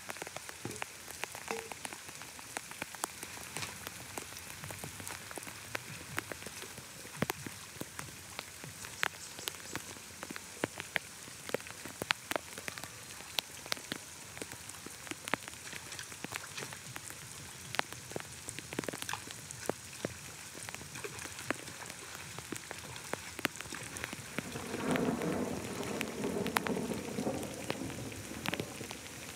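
Steady rain with many scattered drop impacts ticking on hard surfaces. Near the end a louder, lower noise rises for a few seconds and then falls back.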